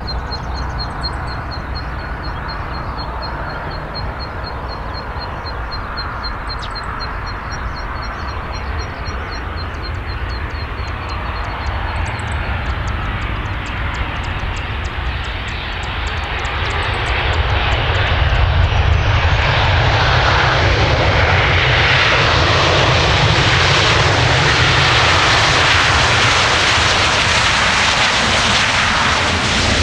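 Boeing 737-800 airliner with CFM56-7B turbofans landing: a steady jet rumble on approach, then, a few seconds after touchdown, the noise swells and stays loud as reverse thrust is applied and the jet rolls out past. A faint high chirping ticks about three times a second through the first part.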